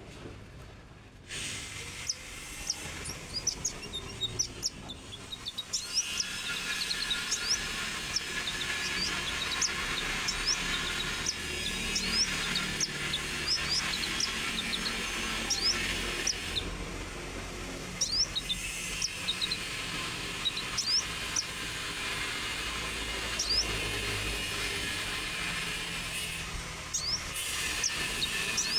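A konin songbird chirping: a long run of short, sharp, high notes with brief pauses, starting about a second in, over a steady hiss.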